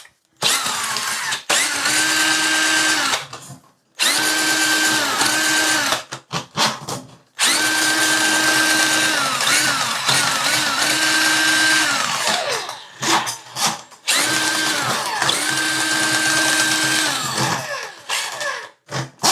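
Ryobi cordless power drain auger running in reverse to draw its cable back out of the drain. The trigger is pulled in four main runs of a few seconds each, the motor spinning up and winding down each time, with short blips between them.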